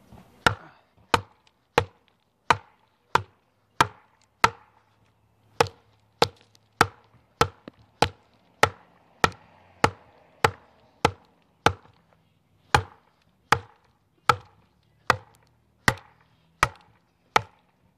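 A wooden baton striking the spine of a TOPS El Chete chopper, driving the blade down into a thick round of tough wood. About two dozen sharp knocks come at a steady one and a half a second, with two brief pauses.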